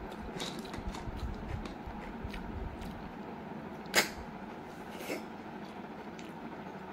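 Close-up eating sounds of snail curry eaten by hand: small wet clicks and smacks, then about four seconds in one sharp, loud suck as a cooked snail is sucked out of its shell, and a smaller one about a second later.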